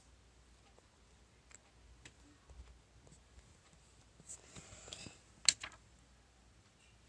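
Handling sounds of a homemade paper fire-alarm pull station being worked by hand: faint scattered clicks and a short paper rustle, then two sharp clicks close together about five and a half seconds in.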